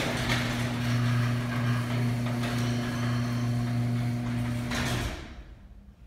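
Electric garage door opener lowering a sectional garage door. A steady motor hum runs over the noise of the door travelling in its tracks, then stops about five seconds in as the door shuts.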